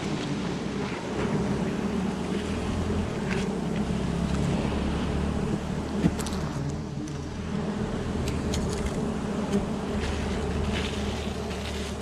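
Wild honeybee colony buzzing in a steady low drone as they are smoked off their open comb, with a few sharp knocks, the loudest about six seconds in.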